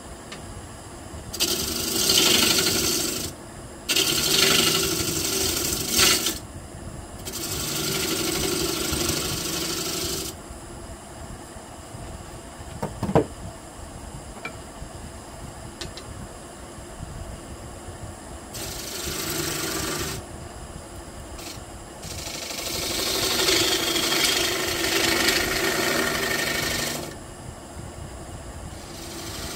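Wood lathe running with a white pine bowl blank while a turning chisel cuts the spinning wood in five passes, the steady hum of the lathe between them. One sharp tick about halfway through.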